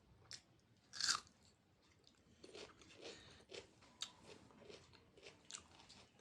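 A person eating close to the microphone: one loud crunchy bite about a second in, then steady chewing of the mouthful, about two chews a second.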